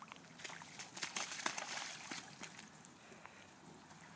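A small child's rubber boots splashing and sloshing through shallow muddy puddles, a run of irregular wet steps, busiest in the middle and tapering off near the end.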